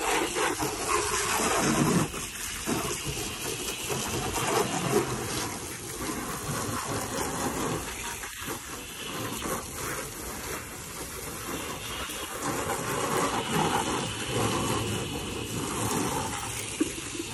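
Water from two garden hose spray nozzles hitting and splashing on a car's body, a steady rushing spray.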